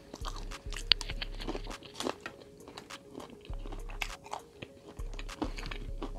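Close-miked chewing of food, with many small crunches and wet mouth clicks scattered irregularly, over a quiet background beat with a deep bass that comes and goes.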